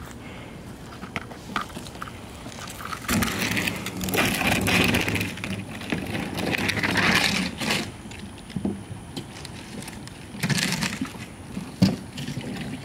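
A wheeled cooler loaded with water is pulled across asphalt, its wheels rumbling and scraping in two long spells. Near the end it is tipped over with a sharp knock.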